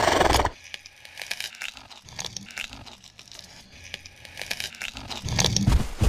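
Sound effects made up for a woolly rhinoceros: a loud, noisy blast for about half a second at the start, then scattered crackling clicks, and a louder low sound swelling up near the end.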